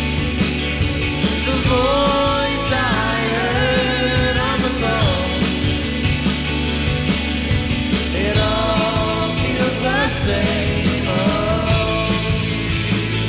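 Indie rock band playing live: drum kit, electric guitars, bass and keyboard, with a woman singing over them in two long phrases.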